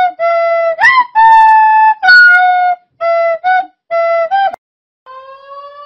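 A tune on a flute-like wind instrument: a string of short, loud held notes with a few upward slides between them. It stops about four and a half seconds in, and after a short gap a quieter rising tone begins near the end.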